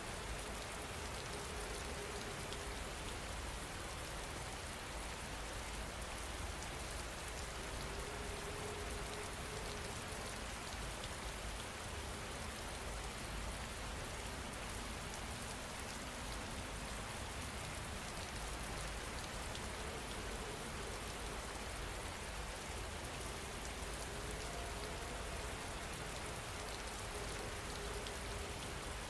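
Steady rain falling, an even hiss of drops with no gaps. A faint low tone comes and goes.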